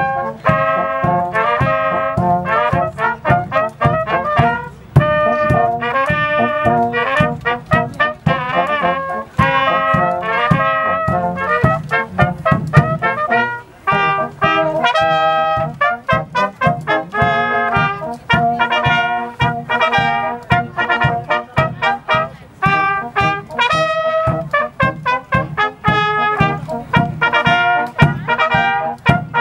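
A brass band of original Civil War-era instruments playing a tune, with cornets carrying the melody over horns and a tuba keeping a steady, regular bass beat.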